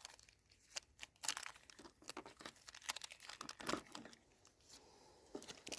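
Faint rustling and scattered light clicks of small gunflints being handled and sorted through for size.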